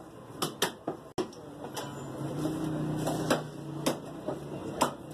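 Butcher's cleaver chopping meat on a wooden block: several sharp knocks at irregular intervals.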